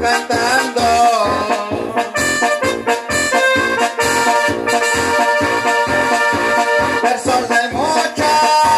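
Latin dance music from a keyboard band: long held melody notes over a steady bass beat.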